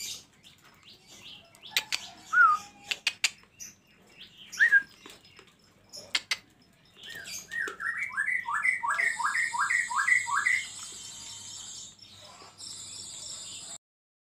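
Caged songbird calling: two short rising whistles, then a quick run of about eight repeated notes, mixed with sharp clicks and knocks around the cage. A steady high hiss sounds in the last few seconds before the sound cuts off.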